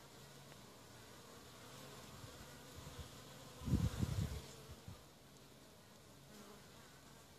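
Honeybees buzzing at a hive entrance, a steady faint hum of many wings. About halfway through there is a brief, louder low rumble.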